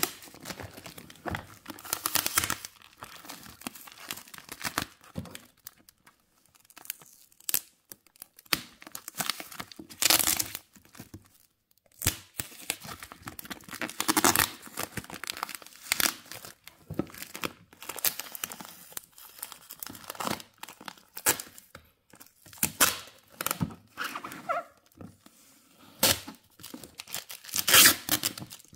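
Clear packing tape and yellow plastic wrapping being ripped and peeled off a cardboard box in irregular bursts, with the plastic crinkling between tears.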